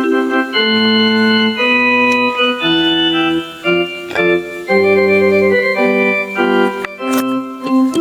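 Casio LK-280 portable keyboard playing a melody over chords in an organ tone, each note held and changing about every half second to a second, with a few light percussive clicks.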